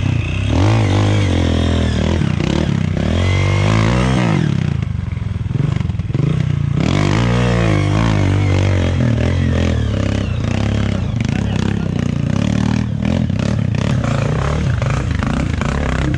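Honda CRF dirt bike's single-cylinder four-stroke engine revving up and down in repeated throttle bursts under load as it climbs a steep, rocky trail.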